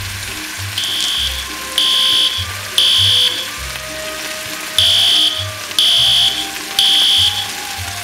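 Fire alarm sounding the evacuation pattern: two groups of three high, even beeps about a second apart, with a pause between the groups. Background music plays underneath.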